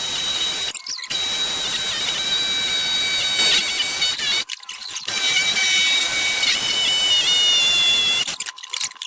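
A power tool running with a steady high-pitched whine, its pitch dipping briefly a couple of times; the sound breaks off abruptly three times.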